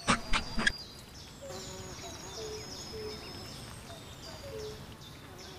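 Three sharp metallic clicks in quick succession, in the first second, from a screwdriver working on the rusted lock-plate screw of an old gun. Birds chirp repeatedly throughout.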